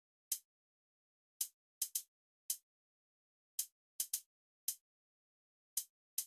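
Sharp, dry clicks in a repeating rhythm: one click, a quick pair, then another single, the group coming round about every two seconds with silence between.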